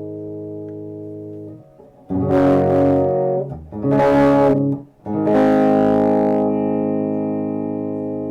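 Electric guitar through Fleor Alnico 5 two-wire humbucker pickups: a chord fading out, then three strummed chords about a second and a half apart, the last left to ring.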